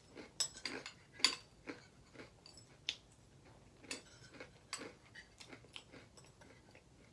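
Eating a bowl of Apple Jacks cereal: a spoon clinking against the bowl and crunchy chewing, in irregular short clicks, the loudest about a second in.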